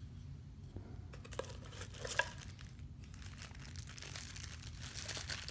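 Cardboard packaging handled and a clear plastic bag crinkling as a wrist watch is worked out of its small inner box: soft scattered rustles and light taps, one sharper tap about two seconds in, the rustling getting busier near the end.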